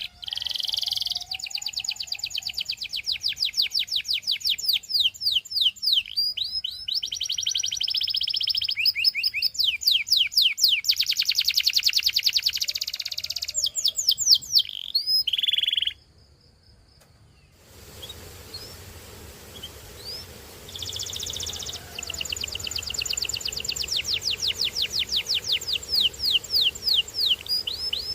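Domestic canary singing: long runs of rapid, evenly repeated high notes, trilled phrases one after another. The song breaks off for about two seconds a little past the middle, then resumes over a steady background hiss.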